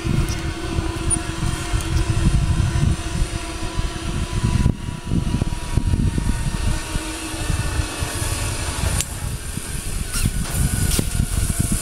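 Zip line trolley pulleys running along the steel cable, a steady humming whine carried down the line as a rider comes across. A loud, gusty low rumble of wind on the microphone runs underneath.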